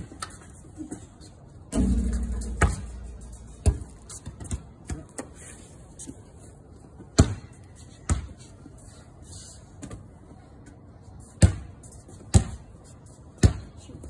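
A basketball bouncing on a concrete patio, sharp single bounces at uneven intervals of about a second or more. About two seconds in comes a louder, deeper thud that dies away slowly.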